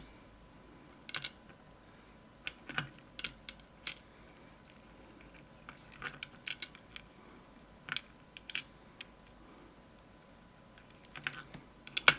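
Pins being worked out of a disassembled Medeco lock: scattered light metallic clicks and taps of small lock parts, a few at a time with pauses between, and a busier cluster of clicks near the end.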